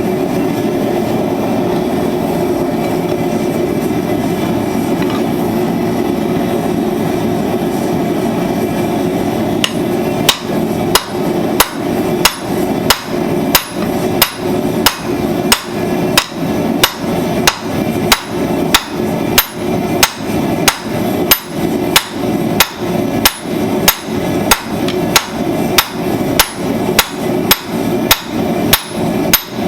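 A steady rushing noise for about the first ten seconds, then a hammer striking steel on an anvil at about two blows a second, each blow with a short metallic ring, as flat-nib tongs are forged. The rushing noise continues under the blows.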